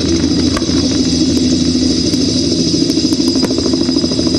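Fireworks going off overhead: scattered sharp pops, then a quick run of crackles about three seconds in. Under them runs a steady engine hum.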